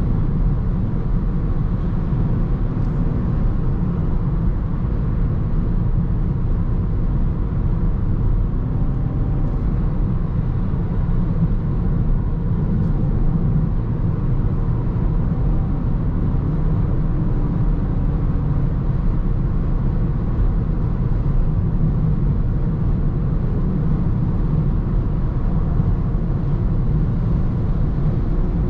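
Steady road and wind rumble inside the cabin of a 2021 Toyota Corolla Touring Sports 2.0 Hybrid cruising at autobahn speed, with a faint, slightly wavering hum from the drivetrain underneath.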